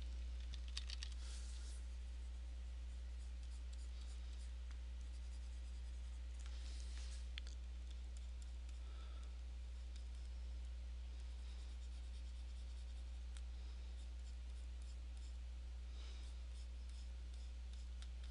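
Pen stylus scratching and tapping on a drawing tablet's surface in short runs of strokes, about a second in, around seven seconds in and again near the end, over a steady low electrical hum.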